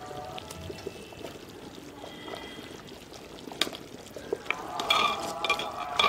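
A metal spoon stirring thick kadhi in a clay pot, with the liquid sloshing. There are several sharp clinks of the spoon against the pot in the second half.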